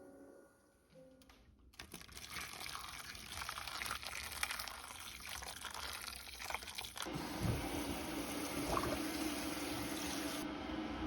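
Water running and splashing, starting about two seconds in and changing to a fuller, lower sound around seven seconds in.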